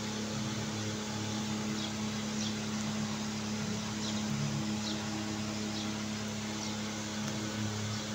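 Steady hum of a running electric motor with a constant low drone, unchanging throughout. A few faint, short high chirps come through over it now and then.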